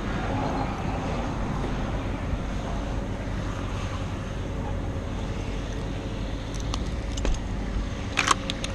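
Engine running steadily at a low pitch, with a few sharp clicks near the end.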